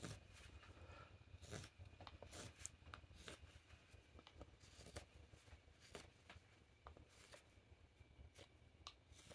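Faint, irregular scrapes and clicks of a straight carving knife paring thin shavings from the rim of an end-grain wooden cup with short thumb-levered cuts.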